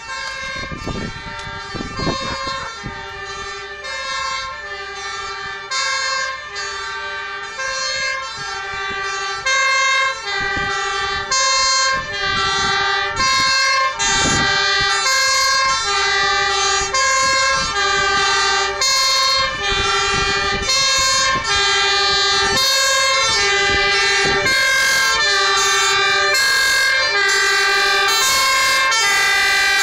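Fire engine two-tone siren alternating between a high and a low note, changing about every two-thirds of a second, getting louder about ten seconds in as the truck approaches.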